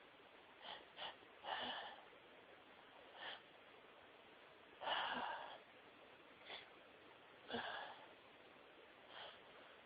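A person's sharp, noisy breaths and sniffs, about eight short bursts every second or so, the longest about five seconds in: the hitching breaths of a sneeze building up.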